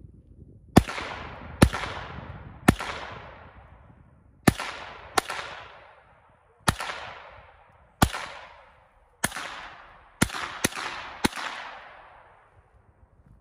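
Pistol fired eleven times at an unhurried, uneven pace, the last three shots closer together. Each sharp crack trails off in an echo that fades over about a second.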